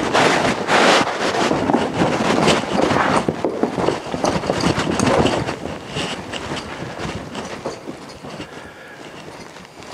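A yearling horse's hooves and a person's feet shuffling and stomping on the ground as the horse moves around. The scuffling is densest over the first five seconds or so, then dies down as she settles.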